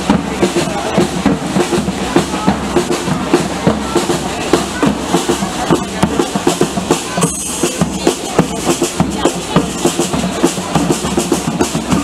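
Parade drums beating a steady, fast rhythm, with other instruments playing along.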